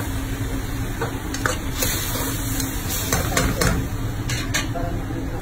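Hot oil sizzling in a frying pan as salted anchovies (ginamos) fry and are stirred, with several short, sharp clicks and scrapes of stirring.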